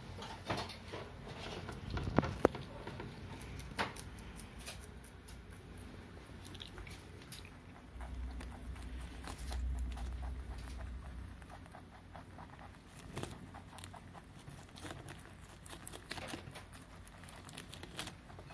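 Pet rabbits chewing and crunching cabbage leaves, with many quick crisp clicks of nibbling and leaf rustle. Two sharper knocks about two seconds in.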